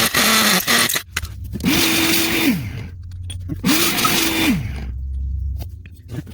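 Bauer hammer drill with a carbide bit boring into concrete in three short bursts, its motor spinning up, holding and winding down each time.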